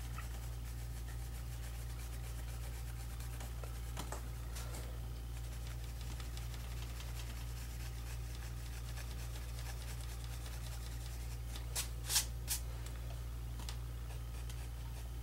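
Pencil shading strokes rubbing and scratching faintly on paper over a steady low hum, with a few short, sharper strokes about four seconds in and again around twelve seconds in.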